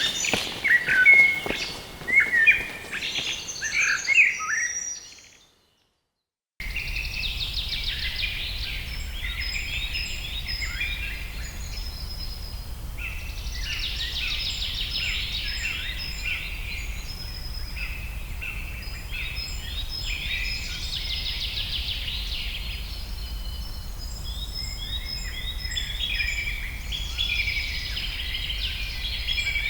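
Birds chirping and calling, fading out about five seconds in. After a short silence, many birds sing at once in a dense chorus of overlapping chirps and trills over a steady low rumble.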